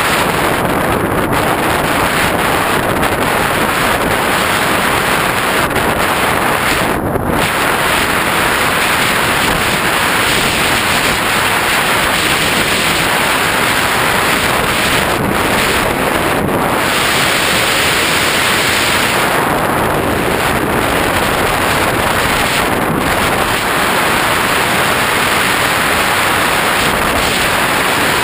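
Steady, loud rush of airflow buffeting the microphone of a GoPro riding on a Skywalker X5 flying-wing RC plane in flight, with the top of the hiss dipping briefly a few times.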